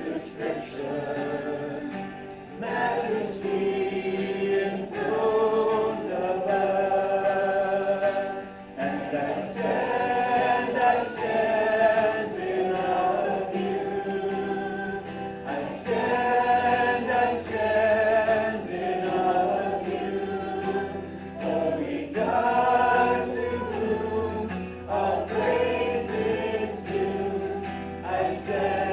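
A congregation singing a hymn together, in phrases of a few seconds.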